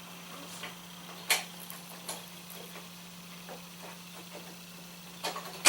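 A few short, sharp clicks and knocks, the loudest two close together near the end, over a steady low hum.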